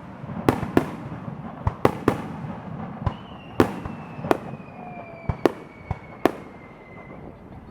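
Aerial fireworks shells bursting in a starmine barrage: about ten sharp bangs at irregular intervals, some in quick pairs. Through the middle runs a faint whistle that slowly falls in pitch.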